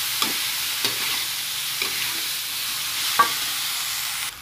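Bean sprouts and animal-skin crackers sizzling in a metal wok as a metal spatula stirs them, with a few scrapes and clicks of the spatula on the pan, the sharpest about three seconds in. The sizzle drops away abruptly just before the end.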